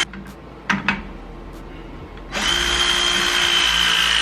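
Cordless power tool motor whirring in short runs: one stops right at the start, a brief blip follows just under a second in, and a longer steady run starts about two and a half seconds in.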